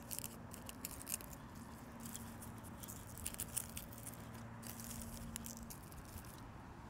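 Faint scratchy rustling and light clicks of gloved hands setting tulip bulbs into potting soil and working soil around them.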